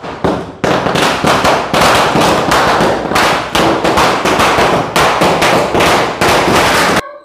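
A string of Diwali firecrackers (a wala) going off in a rapid, continuous run of loud cracks and bangs for about seven seconds, cutting off suddenly just before the end.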